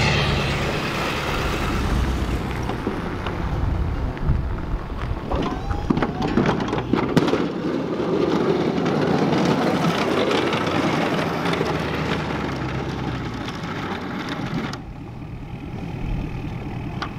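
A Ford Super Duty pickup's 6.7 Powerstroke diesel engine running as the truck drives past pushing a Boss V-plow through snow. It gets quieter and duller near the end as the truck pulls away.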